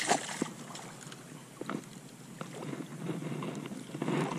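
Wind buffeting the microphone over lapping water on a shallow saltwater flat, with a few faint knocks in the first couple of seconds.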